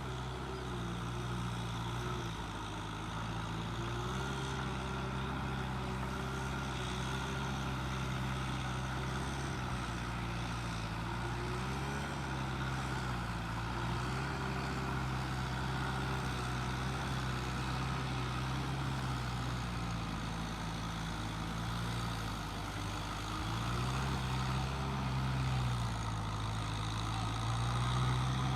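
An engine running steadily, its pitch wandering slightly up and down as the load or throttle changes.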